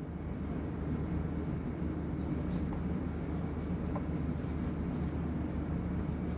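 Felt-tip marker writing on a whiteboard: a series of short, faint strokes, over a steady low hum.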